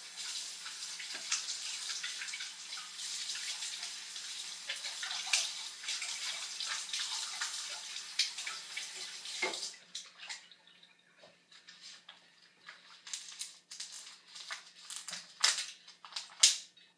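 Kitchen sink tap running as a plastic water bottle is rinsed out under it. The water stops about ten seconds in, followed by scattered clicks and knocks, with a couple of sharper knocks near the end.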